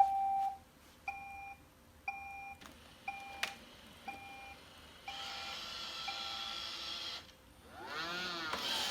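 Robot vacuum starting a cleaning run: a short electronic beep about once a second, then from about five seconds in the steady whirring hiss of its motors, with a brief sweeping warble of tones near the end.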